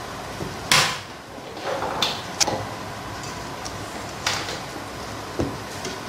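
Silicone spatula scraping and knocking against a stainless-steel mixing bowl while folding thick cake batter: about five short, sharp scrapes and clacks, the loudest a little under a second in.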